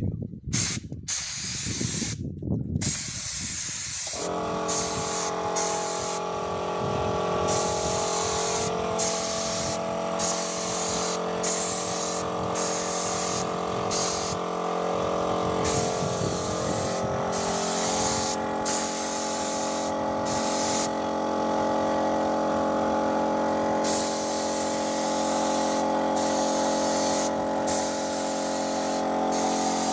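A paint sprayer spraying paint, its hiss starting and stopping in bursts as the trigger is worked. About four seconds in, the sprayer's motor starts and then runs steadily under the hiss.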